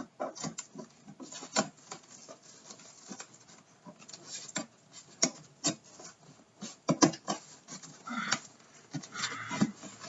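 A cardboard box and its packaging being handled and opened by hand, with irregular taps, knocks, scrapes and rustles.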